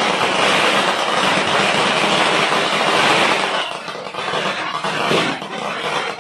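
Fireworks burning in the street, a dense steady crackling hiss. It eases about three and a half seconds in, leaving lighter crackle with a few separate bangs.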